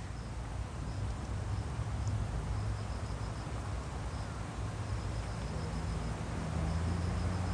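Insects chirping in short, rapid trains of high pulses that recur every second or so, over a low steady outdoor rumble; a low hum joins about five and a half seconds in.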